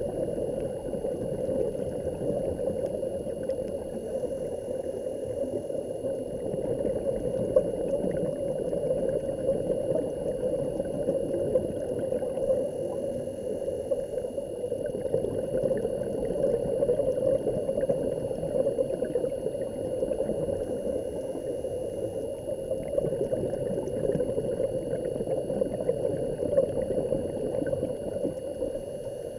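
Steady, muffled rush of water heard through an underwater camera while it is submerged, with a faint steady high-pitched whine above it.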